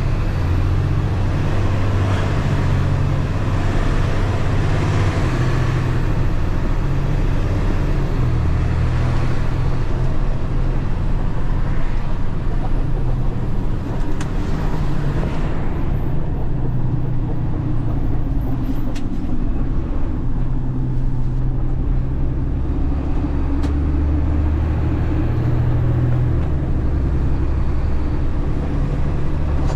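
Delivery truck's engine running steadily while the truck drives, heard from inside the cab with road noise; the low engine note rises and falls as the truck changes speed.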